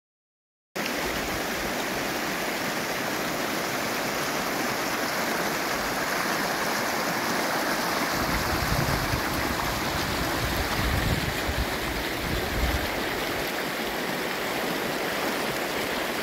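Small rocky mountain stream rushing and splashing over stones, a steady rush of water that cuts in suddenly after a moment of silence.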